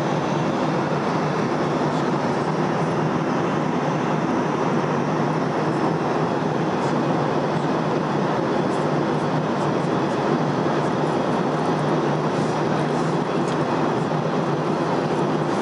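Airliner cabin noise in flight: the steady, unchanging rush of engines and airflow heard from inside the cabin.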